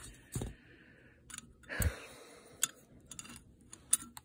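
Metal engine parts clicking and knocking as they are handled and fitted onto a small two-stroke bike engine: a heavier knock about half a second in and another about two seconds in, then light scattered clicks.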